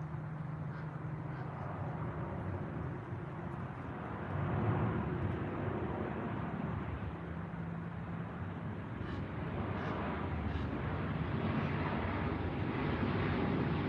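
Distant engine drone: a steady low hum that grows louder toward the end, with a few faint high chirps above it.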